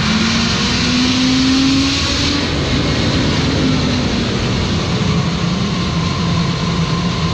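Fire truck's diesel engine speeding up from idle under pump load as the pressure governor is dialed up, its tone rising over the first two seconds and then running steady at higher RPM. Under it a steady rushing noise of the fire pump flowing water.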